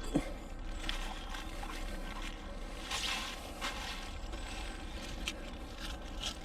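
Light scrapes and clicks of metal finds being handled off a fishing magnet, a few separate knocks over steady outdoor background noise, with a brief falling squeak just after the start.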